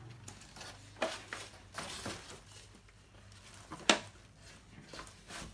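Folding bamboo lap table being handled and opened out: scattered wooden clacks and knocks as its legs are swung out, with the sharpest knock about four seconds in.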